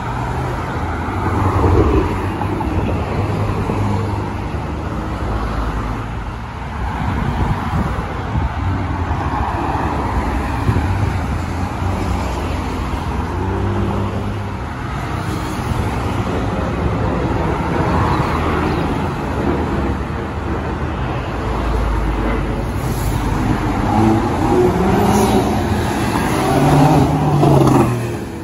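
Steady traffic noise from cars passing on a multi-lane avenue. Near the end a Porsche 911 Cabriolet's flat-six grows loudest as it accelerates by, its engine note rising in pitch.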